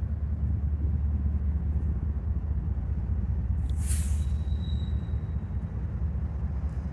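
Two BNSF diesel locomotives leading a freight train, a steady low rumble as they approach. A short, sharp hiss about four seconds in, followed by a faint high whine for about a second.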